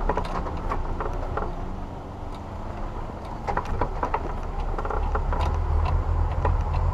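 Off-road vehicle driving along a rutted mud track: a low rumble that grows louder about five seconds in, with scattered knocks and clicks over the bumps.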